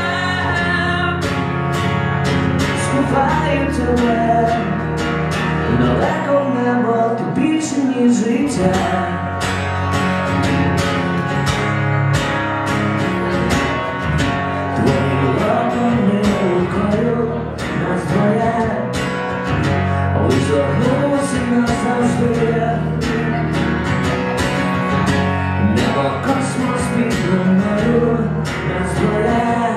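A man singing over a steadily strummed acoustic guitar, played live.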